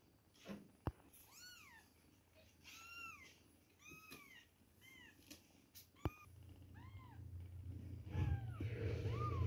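Two-week-old kittens mewing while nursing: about eight short, high-pitched mews, each rising then falling, roughly one a second. Two sharp clicks, about a second in and again about six seconds in, and a low steady rumble that builds through the last few seconds and ends as the loudest sound.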